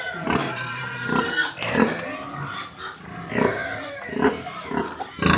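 Pigs grunting and calling in a pen: a run of short, separate calls, one every half second to a second.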